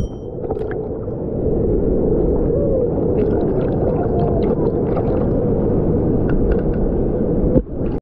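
Fast, churning river water below a waterfall, heard with the microphone at or just under the water's surface: a steady, muffled, low rushing.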